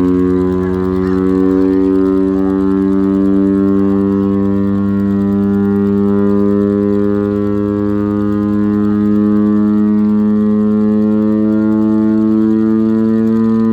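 Chrysler Bell Victory air raid siren running, its Hemi V8 engine driving the rotor, holding a loud, steady low chord-like wail that edges up in pitch near the end, with the engine's drone underneath.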